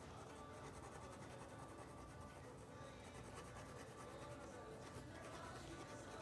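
Faint scratching of a pen nib on paper as ink lines are drawn.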